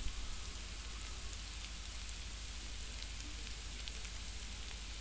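Onion-tomato masala with spice powders sizzling steadily in oil in an open pressure cooker as it is stirred with a wooden spatula, with a few faint ticks.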